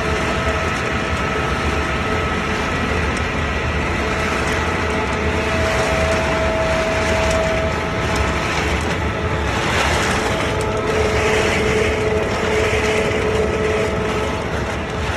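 Wood pellet production line machinery running steadily, a dense mechanical din with a steady whine over it, and a brief louder rush of noise about ten seconds in.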